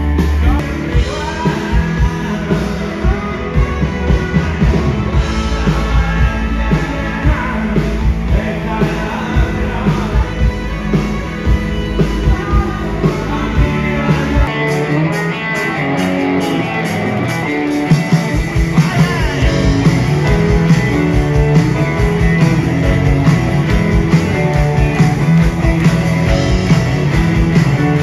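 Rock band playing live with drums, bass and guitars, an instrumental break between sung verses. The bass and kick drum drop out for a few seconds about halfway through, then come back in.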